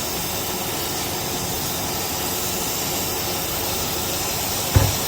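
Brazing torch flame hissing steadily as it heats the copper pipework and filter drier to melt the joint, with one short low thump near the end.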